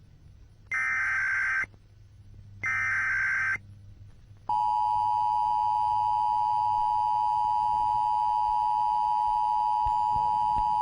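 Emergency Alert System tones. Two short bursts of digital data (the SAME header), each just under a second long and about two seconds apart. Then, about four and a half seconds in, the steady two-tone attention signal starts and holds.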